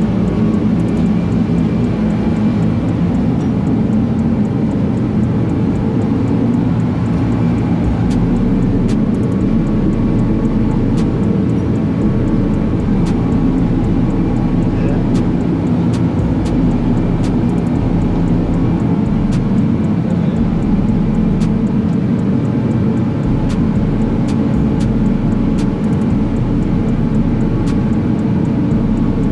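An engine running steadily at an even pitch, with faint light ticks on top.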